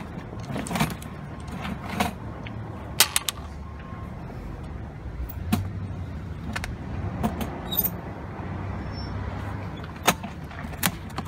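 Scattered knocks and clicks as a plastic pet carrier with a wire door is carried and shifted about, over a low rumble that swells in the middle.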